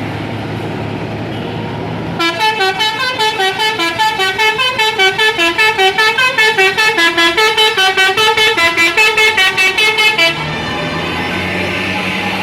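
Bus telolet basuri horn playing a fast tune, about five notes a second, stepping up and down in pitch for some eight seconds. A bus engine runs with a steady hum before and after it.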